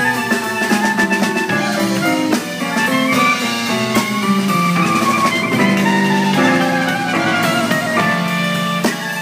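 Clarinet playing a jazz solo, its melody bending and sliding, over electric keyboard chords and drums.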